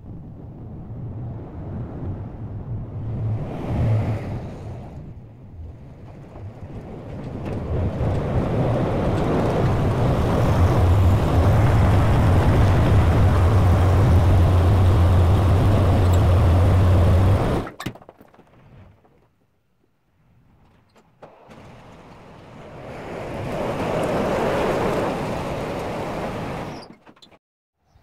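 White 2-155 tractor's diesel engine running, a steady low drone that grows louder about eight seconds in and cuts off suddenly a little past halfway. After a few near-silent seconds a second, softer rumble swells and cuts off shortly before the end.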